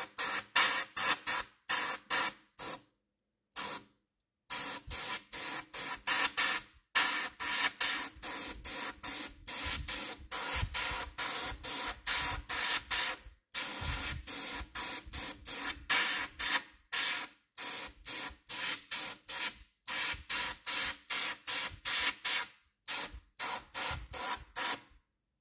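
Airbrush spraying paint onto small fishing-lure eyes in short hissing pulses, about two a second, with a longer pause a few seconds in.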